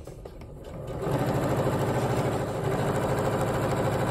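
Electric sewing machine starting up about a second in and then stitching steadily at a fast, even rate, sewing binding through the layers of a quilt.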